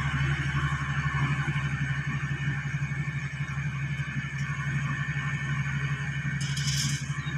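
Motor grader's diesel engine running with a steady low drone. Near the end a shovel scrapes briefly through gravel.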